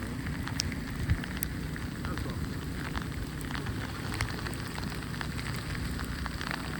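Outdoor snowstorm ambience: a steady low rumble with many small crackles and ticks scattered through it.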